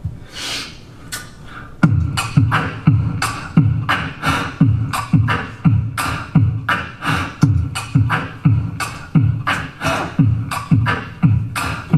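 A beatboxed drum beat made with the mouth into a microphone and looped. After a few breathy hisses it settles, about two seconds in, into a steady groove: a deep kick sound about twice a second alternating with sharper snare and hi-hat sounds.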